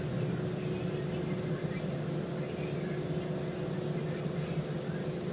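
Steady low machine hum with two faint constant tones over it, unchanging throughout.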